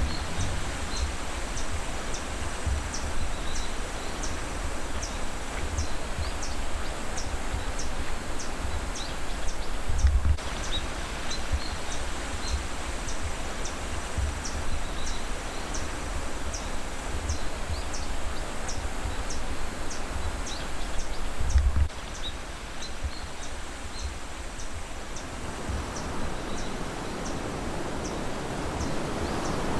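Forest ambience: a steady wash of outdoor noise with a short, high chirp repeating roughly once or twice a second. Now and then there is a low rumbling thump, the strongest about a third of the way in and again about two-thirds in.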